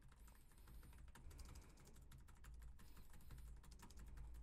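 Faint typing on a computer keyboard, a quick, uneven run of key clicks, picked up by a Neumann TLM102 condenser microphone.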